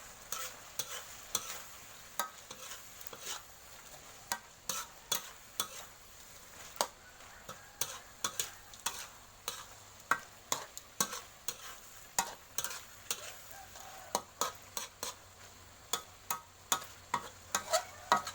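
A spatula stirring and scraping in a pan of frying food, knocking against the pan in irregular sharp clicks a few times a second over a faint sizzle: frog being stir-fried with curry paste and herbs.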